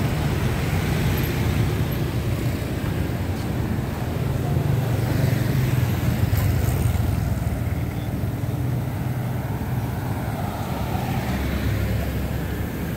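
Street traffic: motor scooters and cars passing close by, a steady engine rumble.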